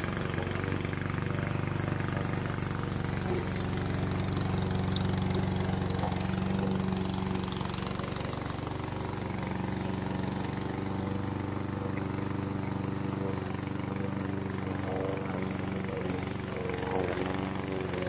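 Vigorun VTC55090 remote-control tracked mower's engine running steadily at an even pitch while the machine drives over and cuts long grass.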